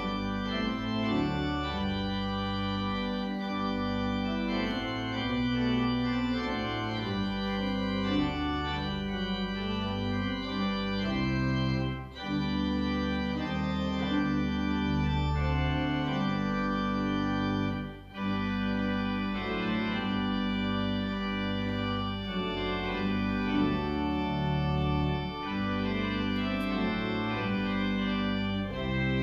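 Church pipe organ playing a slow piece of sustained chords, the postlude closing the service, with two brief pauses between phrases.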